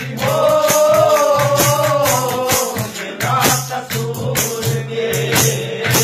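Haryanvi ragni folk singing: a male voice holds a long, wavering sung note for the first two and a half seconds or so, over steady rhythmic percussion strokes and a low sustained drone.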